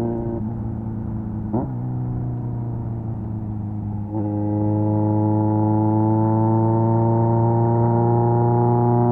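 Kawasaki Z900's 948cc inline-four engine running through an SC-Project exhaust while riding. It goes quieter at first, with a quick rising blip about a second and a half in. About four seconds in it gets louder again, and the revs climb slowly.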